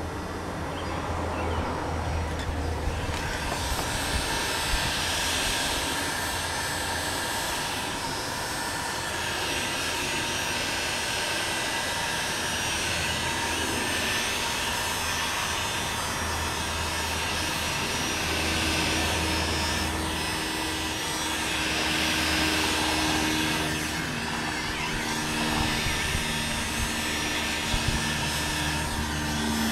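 Handheld heat gun blowing steadily, its fan starting up about three seconds in, as it melts a polyethylene patch onto a kayak hull.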